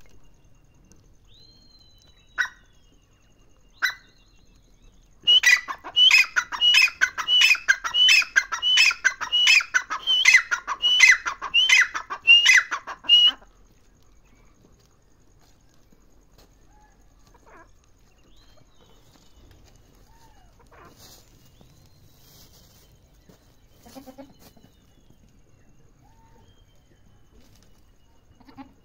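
Grey francolin (teetar) calling: a few single sharp notes, then about eight seconds of loud call notes repeated rapidly, about two a second, which stop suddenly. The rest is quiet, with only a few faint sounds.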